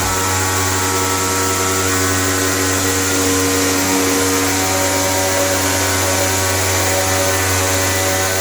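An electric motor running steadily at constant speed: a low hum with a whirring hiss over it.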